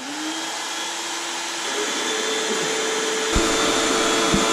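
Electric air pump switching on and running steadily to inflate an air mattress, its whine rising briefly as the motor spins up. Two dull knocks near the end.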